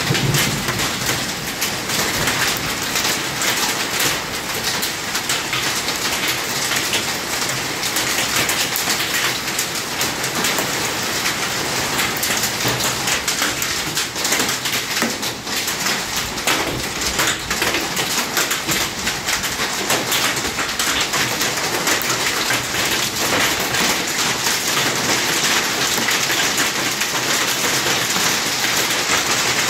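Hail mixed with rain pelting the wet pavement and nearby surfaces: a dense, steady patter of many separate small impacts.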